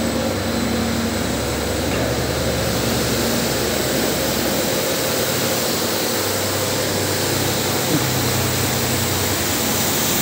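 Automatic carpet-washing machine running: electric gear motors turn rotating disc brushes that scrub a wet rug under a spray pipe, making a steady whirring wash with a low hum. One brief tick about eight seconds in.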